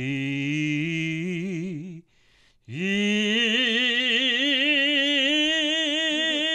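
A man singing two long held notes with vibrato, the second one higher, with a short breath between them.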